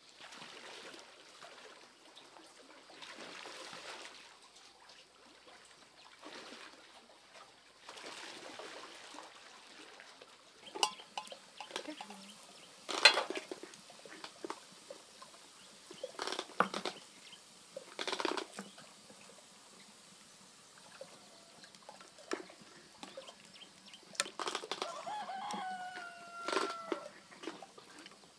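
A rooster crowing once near the end, among a few sharp knocks through the middle and soft rustling noise.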